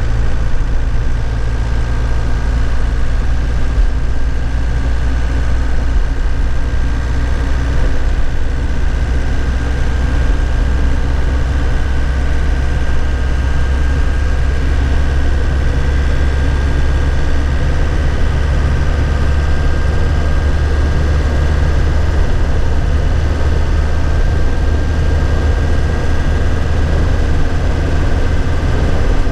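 A 2001 Nissan Cabstar light truck's engine running at a steady, even speed, heard from the driver's seat, with a steady high whine above the low engine drone.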